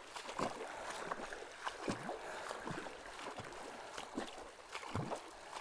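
Shallow river running over stones, with irregular small splashes and drips, about two a second, from wading and a cast net being pulled through and out of the water.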